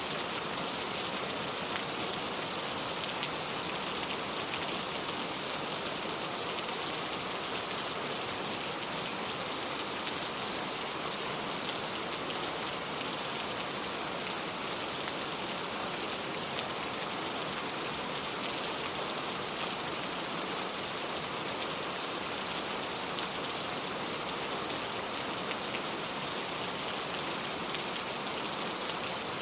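Heavy rain pouring steadily, a dense even hiss of drops pattering on surfaces with no letup.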